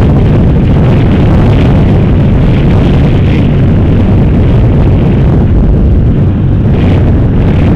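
Loud, steady wind rumble buffeting the camera microphone on a moving sport motorcycle, with the motorcycle's engine running underneath.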